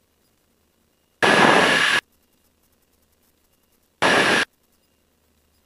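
Two short bursts of static from an aircraft's VHF radio, each cutting in and out abruptly as the squelch opens with no voice on the frequency: a longer one about a second in and a shorter one about four seconds in. Between them the channel is near silent.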